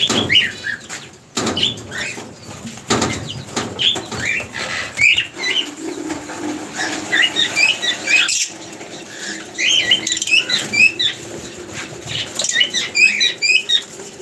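A flock of birds feeding: many short, high chirps overlapping throughout, with repeated bursts of wing flapping as birds take off and land.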